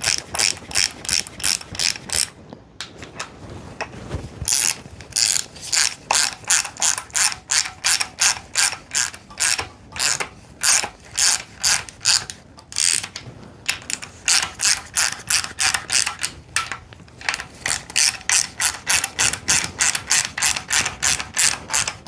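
Ratchet wrench with a 17 mm socket clicking in quick runs, about four clicks a second with short pauses, as it turns the flywheel bolts that draw a rear main seal press tool in and press a new rear main seal into a Mazda Miata engine.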